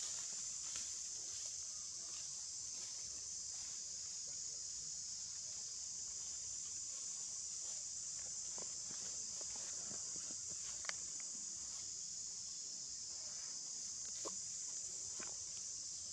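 Steady, high-pitched drone of an insect chorus, with a few faint clicks, the sharpest about eleven and fourteen seconds in.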